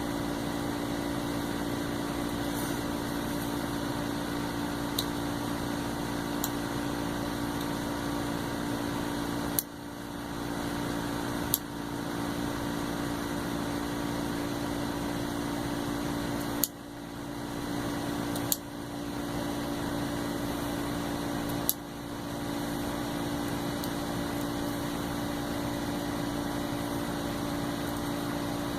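Steady mechanical hum of a running appliance, with about five short, sharp clicks in the middle.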